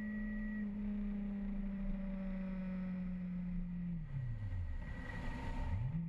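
Motorcycle engine running at steady revs over a low rumble of road and wind. About four seconds in the engine note falls away, and it climbs again near the end, with a brief rush of noise just before.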